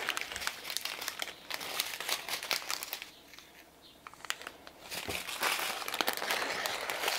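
Thin plastic bags of diamond-painting drills being handled and crinkling, with a quieter pause in the middle.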